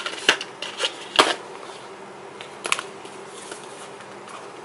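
A cardboard cosmetic palette box being handled and opened: a few sharp clicks and taps, the loudest about a second in, with light rustling between.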